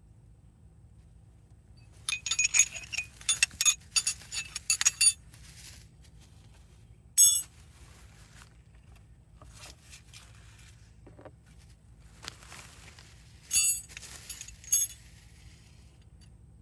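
Loose metal hardware clinking and rattling as it is rummaged through: a burst of rattling about two seconds in, a single ringing clink a few seconds later, and another burst of clinks near the end.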